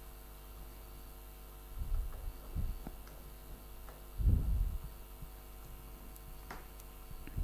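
Steady electrical mains hum, with a few dull knocks and rustles as wires and a plastic terminal connector are handled on a table; the loudest knocks come a little past halfway, and there is one short click near the end.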